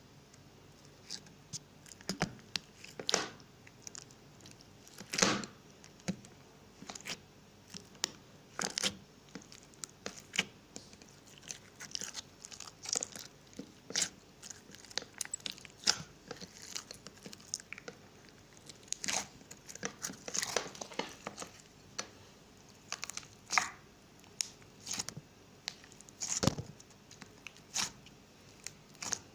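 Slime being squeezed and poked by hand, giving irregular sticky pops and crackles, a few of them louder than the rest.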